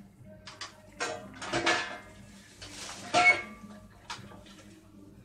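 A spoon clinking and scraping against a bowl as a thin sauce is spooned out. There are several irregular knocks, some ringing briefly, and the loudest comes about three seconds in.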